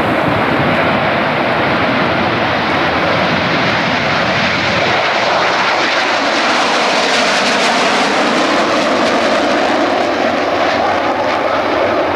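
RAF SEPECAT (BAe) Jaguar GR.1 jets taking off in formation, their twin Adour turbofans at takeoff power giving a loud, steady jet roar. From about five seconds in the deep rumble thins and the sound turns brighter and hissier as the jets pass close and climb away.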